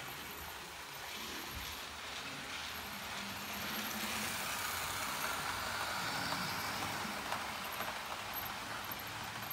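Model train passing on layout track: a small electric motor whirring and wheels running over the rails with a few clicks. It grows louder over the first few seconds and is loudest around the middle as it goes by close up.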